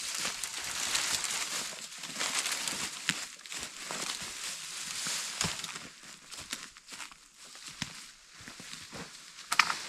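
Rustling and crackling of vines and brush being pulled and broken, with scattered sharp snaps.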